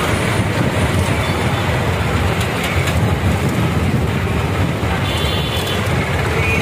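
Several farm tractors, Mahindra and Massey Ferguson, driving past in a column, their diesel engines running together as a steady, loud, mostly low-pitched engine noise.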